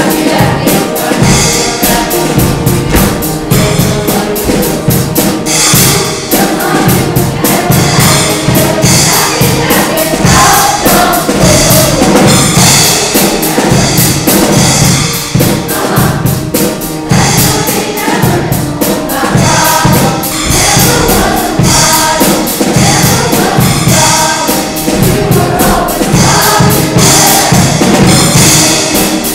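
Show choir singing in full voice to a backing band or track with drums and a steady beat.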